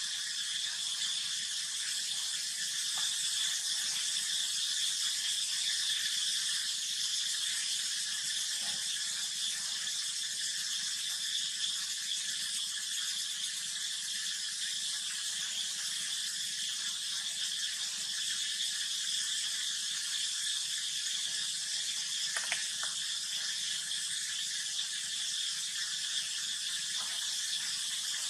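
A steady high-pitched hiss with no calls or other distinct events in it, broken once by a faint click about two-thirds of the way in.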